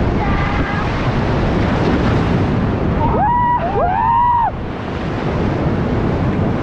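Loud, steady rush of river rapids mixed with wind buffeting the microphone. About three seconds in, a person shouts twice, each shout rising and falling in pitch.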